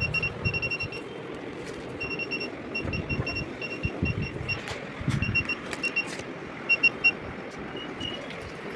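Rapid electronic beeping, a high tone repeated several times a second in short bursts that stop and start, over handling noise. Three sharp knocks come about seven seconds in.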